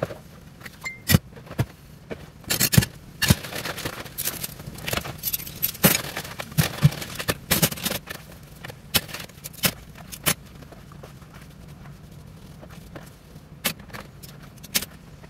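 Washing up by hand in a stainless steel sink: cutlery and pots clinking, knocking and scraping at irregular moments, with water swishing between them. It is quieter for a couple of seconds past the middle.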